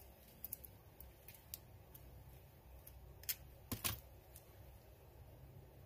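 Scattered faint clicks and light taps of small parts and tools being handled during rear brake caliper reassembly, with a louder pair of knocks a little past the middle.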